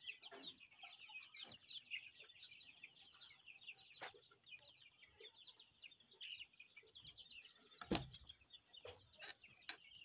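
A flock of 21-day-old chicks peeping steadily and faintly: a dense chorus of short, high, falling chirps. Two knocks break in, about four and eight seconds in.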